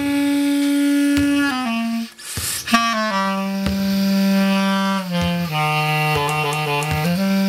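Clarinet playing a slow improvised solo line of long held notes that step down into its low register, with a brief break about two seconds in and a quick ornamented flourish of short alternating notes near the end.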